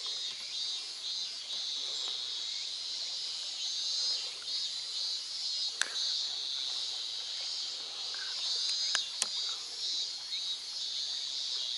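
Higurashi (evening cicadas) singing in a steady, high-pitched chorus that pulses slightly. A few sharp clicks cut in about six seconds in and twice close together around nine seconds.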